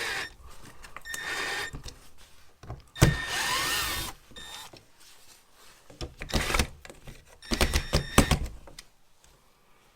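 Cordless drill-driver backing screws out of a wall-mounted thermostat in short runs of high motor whine, each about a second long. Shorter bursts with clicking and rattling follow near the end.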